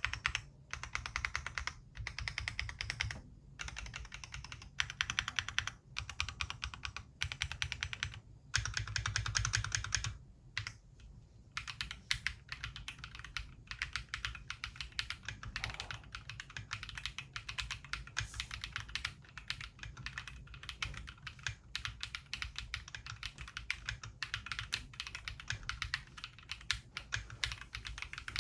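Typing on a Mongeek M5 mechanical keyboard with fully lubed Akko Piano switches, foam switch films and Poron bottom foam. Quick runs of keystrokes broken by short pauses for the first ten seconds or so, then steady continuous typing.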